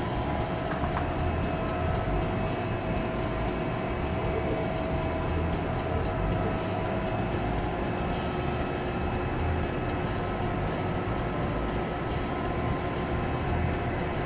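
Romi Galaxy CNC lathe running idle: a steady machine hum with a low rumble and a faint whine that fades out about halfway through.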